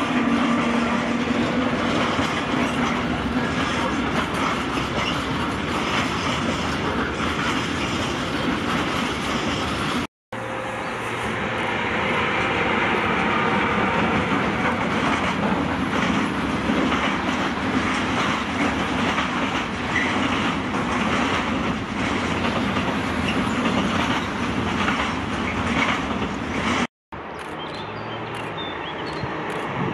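Electric freight locomotives and their wagons rolling past in three takes: a DB class 152, a BLS Cargo Vectron, then a class 145 hauling hopper wagons. Steel wheels rumble and clatter over the rail joints and points, with a steady hum at first, and the sound cuts off abruptly twice between the takes.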